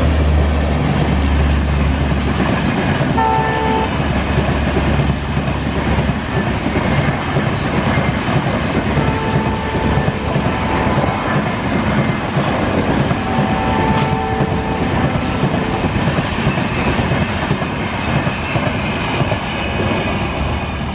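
Diesel locomotive passing at speed, its engine rumble fading in the first few seconds, then the steady rolling and clickety-clack of the coaches' wheels on the rails. The train horn sounds three times: a short blast about three seconds in, then two longer ones around ten and fourteen seconds.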